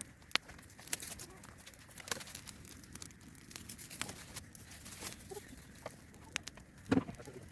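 Irregular sharp crackles and clicks, with a short low bird call about seven seconds in.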